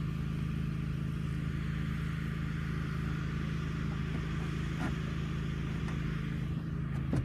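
An engine running steadily at idle, an even low hum. A few faint clicks come about five seconds in and near the end.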